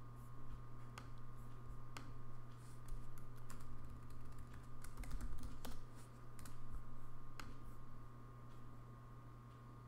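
Typing on a computer keyboard: irregular light key clicks, thinning out near the end, over a steady low electrical hum.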